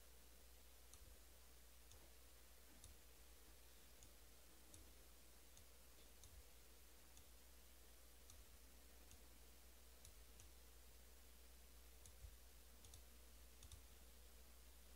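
Near silence with a low steady hum and faint, irregular clicks, roughly one every second, a slightly louder one about twelve seconds in.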